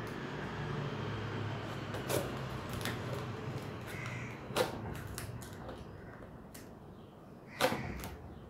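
Scissors cutting and scraping at plastic packing tape on a cardboard shipping box, with tape rustling and three sharp clicks, the loudest near the end.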